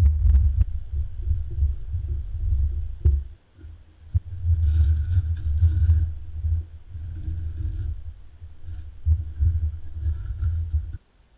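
Low rumbling and thudding of work on a wooden workbench: first a hand roller pressing carpet onto a board, then a carpeted panel being handled. It breaks off briefly about three seconds in and cuts off sharply near the end.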